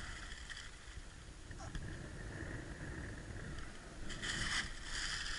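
Low wind rumble on the microphone. About four seconds in, a second or so of rustling starts.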